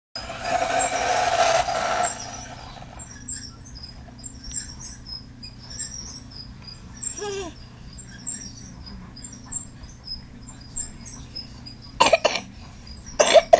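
A toddler fake coughing: a long burst of about two seconds at the start, small vocal noises in between, and two short, loud coughs near the end.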